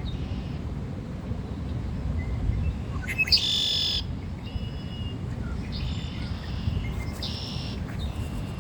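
Songbirds singing a few short phrases, the loudest about three seconds in, over a steady low rumble.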